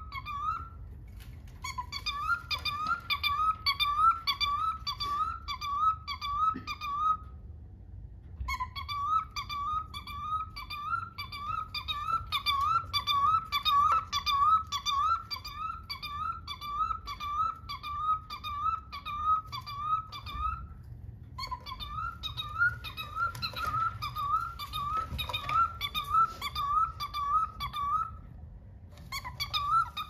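Cockatiel giving a long series of short, squeaky chirping calls, about two or three a second, in runs of several seconds. The runs break off briefly about a second in, about eight seconds in, about twenty-one seconds in and near the end.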